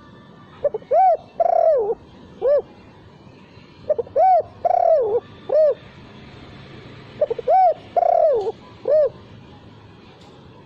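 Spotted dove (tekukur) cooing: three phrases about three seconds apart. Each phrase is a short note followed by three arched, rising-and-falling coos, and none ends with the closing 'kuk' note.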